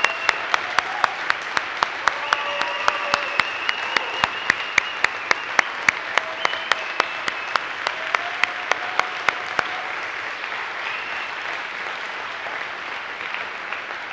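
Audience applauding, with one person clapping close to the microphone in a steady beat of about three claps a second. The near claps stop about ten seconds in while the applause carries on.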